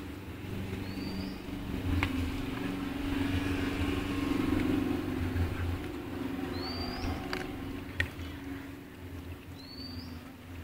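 A motor vehicle's engine running nearby: a steady low hum that swells in the middle and fades toward the end. Short high rising chirps come every few seconds, and there are a few sharp clicks.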